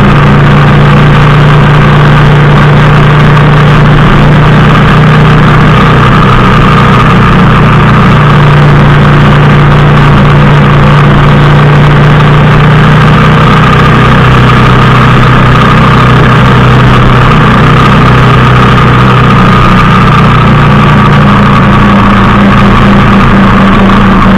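Motorcycle engine running steadily while riding, loud and close, with a steady hum that holds its pitch throughout.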